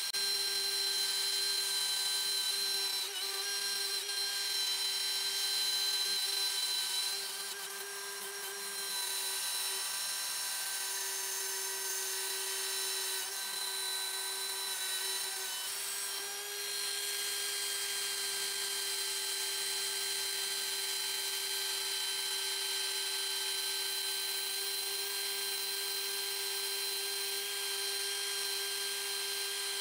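Electric drill running at a steady speed with a wire wheel brush pressed against the steel wrench, a constant motor whine under a high scratching hiss as it scours off rust. The note dips briefly twice as the brush is eased off and moved along the tool.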